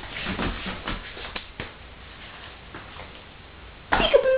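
A baby's short, breathy coughs in the first second and a half. Near the end comes a loud, drawn-out, high-pitched playful voice starting a "peekaboo".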